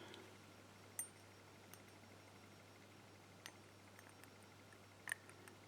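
Near silence with a few faint metal clicks, about a second in, a little past the middle and near the end, as the core of an ABUS 83/45 padlock is slid into the lock body.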